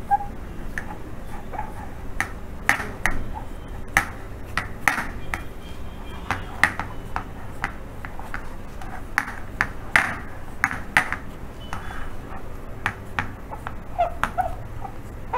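Fingers patting and pressing pizza dough out across a nonstick metal pan: irregular light taps and clicks, some with a short metallic ring.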